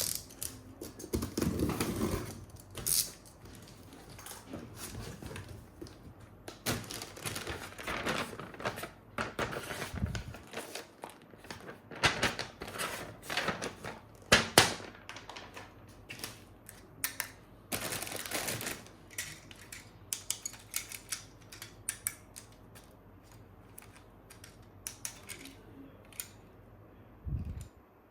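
Plastic toy parts and packaging being handled: irregular clicks, clacks and short rustles, some louder knocks among them.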